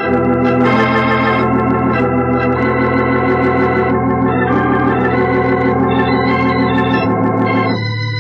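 Organ music bridge: held chords over a low bass note, changing several times, marking a scene change in a radio drama.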